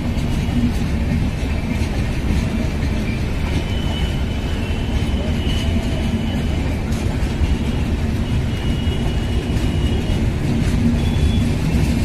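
Red LHB passenger coaches of an Indian Railways express rolling past on an arrival, giving a steady, dense rumble of wheels on rail. A faint high squeal rises above it several times.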